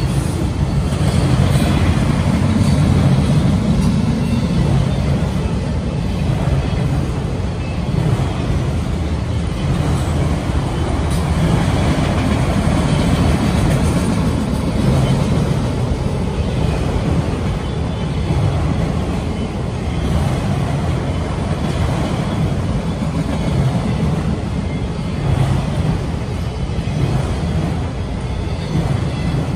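Freight train of autorack cars rolling past, a steady low rumble of wheels on rail.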